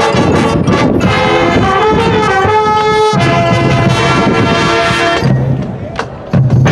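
High school marching band playing, brass sustaining chords over drums, with a brief drop in volume near the end before the full band comes back in loudly.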